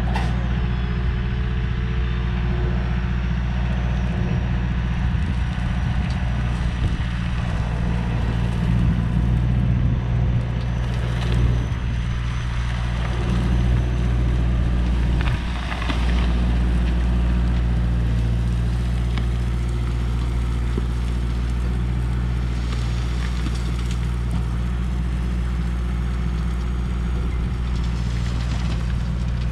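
An engine running steadily at an even speed, a low hum that holds throughout, with some louder noisy stretches over it in the middle.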